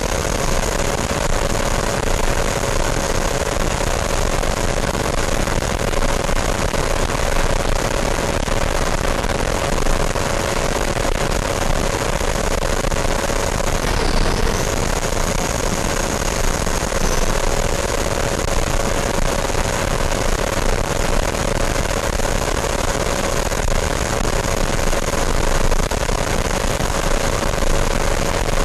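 Electric ducted fan of a radio-controlled model jet, heard from its onboard camera in flight: a steady high whine over a constant rush of air. About halfway through the whine dips in pitch for a moment, then returns to its steady note.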